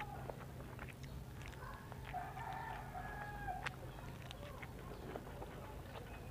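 A rooster crows once, faintly, for about a second and a half starting about two seconds in. Around it are soft, scattered clicks of teeth biting kernels off a boiled corn cob.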